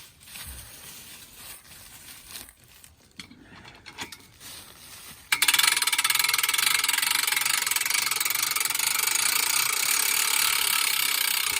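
Cordless drill driving the ATV log hitch's cable winch, starting suddenly about five seconds in and running steadily with a high-pitched whir, winding the cable back onto the spool. Before it starts, only faint handling sounds.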